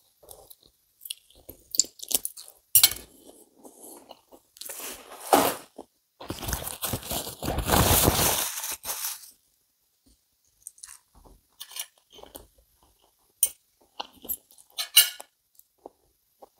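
A man chewing a bite of sausage, with small crunching clicks. Then comes a loud rustle lasting a few seconds, a paper tissue being handled and unfolded. Later there are scattered light clicks of a knife and fork against a ceramic plate.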